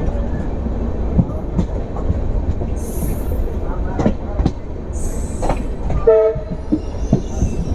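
Passenger train running at speed: steady low rumble from the coach with sharp clicks of wheels over rail joints and two brief high hisses. A short blast of the train horn sounds about six seconds in.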